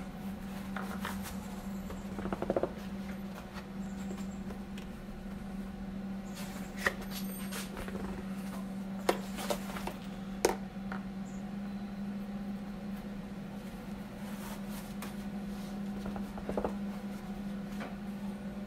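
A steady low machine hum, with scattered light clicks and knocks now and then.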